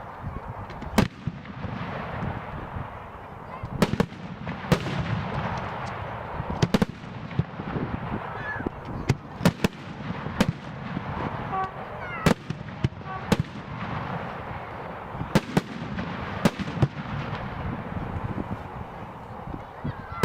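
Professional aerial firework shells bursting overhead: a rapid, irregular string of sharp bangs, some close together, over a continuous rumble and crackle of earlier bursts echoing away.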